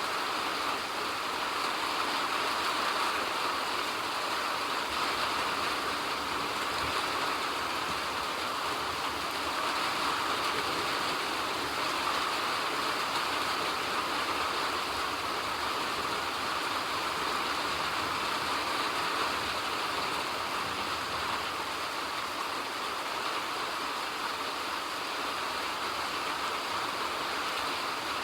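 Steady rain, a continuous even hiss with no separate drops or changes standing out.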